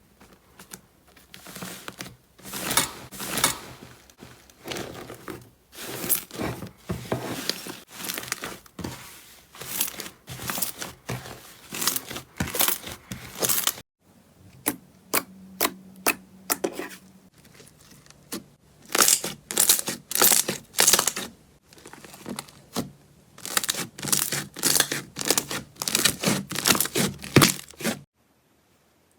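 Slime being squeezed and pulled apart by hand, giving dense runs of sharp crackling and tearing sounds that come in bursts of about a second. It stops abruptly about halfway through and resumes, then cuts off near the end.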